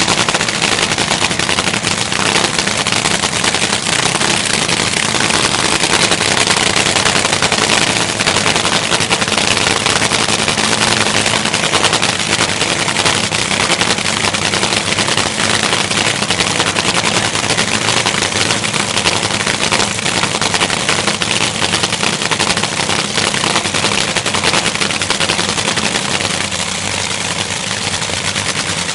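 Top Fuel dragster's supercharged nitromethane V8 idling at the start line, a loud, steady, rapid crackle of firing that eases slightly near the end.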